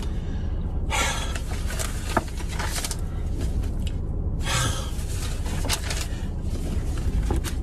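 Sheets of paper rustling as they are handled and flipped, with breathy noises, over a steady low rumble in a car cabin. The two loudest bursts come about a second in and about halfway through.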